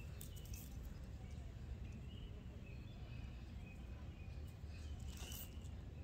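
Faint outdoor ambience: distant birds chirping here and there over a steady low rumble.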